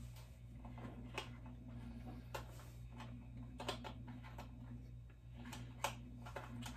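A few scattered light clicks and taps of hands handling plastic headphone packaging, over a steady low electrical hum.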